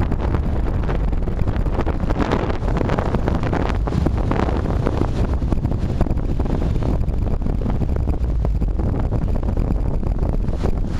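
Strong, gusty Santa Ana wind buffeting the microphone with a heavy low rumble, and palm fronds rustling as the gusts rise and fall.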